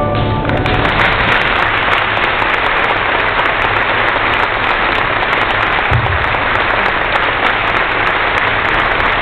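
Audience applauding, steady and dense, as a children's choir's last held note dies away in the first half second. A short low thump comes about six seconds in.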